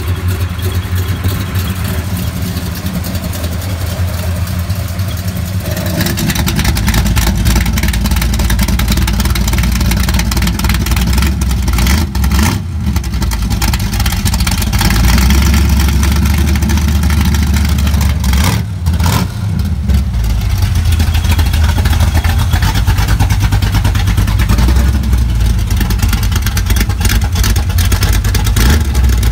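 A 383 V8 in a 1987 Chevrolet Monte Carlo SS running loud and being revved. About six seconds in the exhaust grows louder and deeper, fitting the electric exhaust cutouts opening and sending the exhaust out ahead of the mufflers. The sound dips briefly a couple of times between revs.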